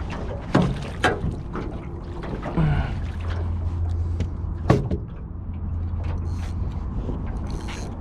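Knocks and bumps on a small aluminium boat's hull while a pinky snapper is brought aboard, over a steady low rumble. There are three sharp knocks, the loudest near five seconds in.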